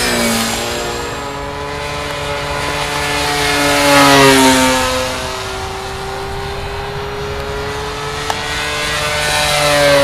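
Electric motor and propeller of a VisionAire RC aerobatic plane flying past; it swells at the start, about four seconds in and near the end, its pitch dropping as it goes by each time.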